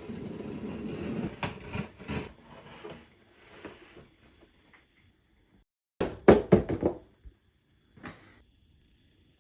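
A package being handled and opened: rustling and scraping of the packaging, then a quick run of sharp knocks about six seconds in and one more about eight seconds in.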